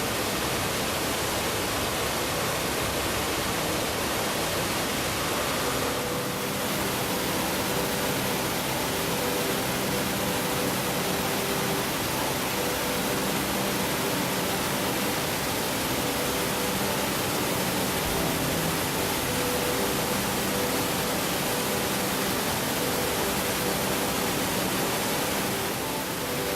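Baggfossen waterfall: a steady, loud rush of falling water.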